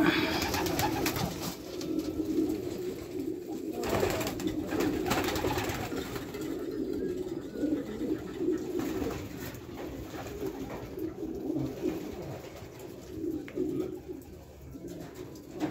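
A flock of homing pigeons cooing, many birds overlapping in a steady low murmur, with bouts of rustling near the start and again around four to five seconds in.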